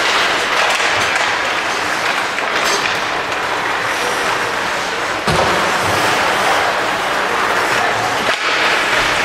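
Ice hockey rink noise: a steady din of crowd and play, with one sharp thump about five seconds in and a smaller knock near the end.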